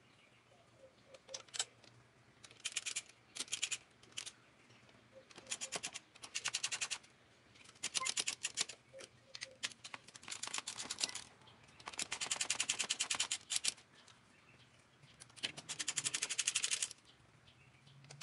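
Hand ratchet wrench clicking in about seven short bursts of rapid clicks as nuts on the engine's camshaft bearing caps are worked loose, with quiet pauses between strokes.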